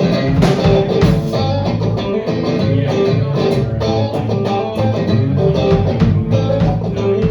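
Live band playing during a sound check: guitar over a low bass line, with regular sharp hits keeping a steady beat.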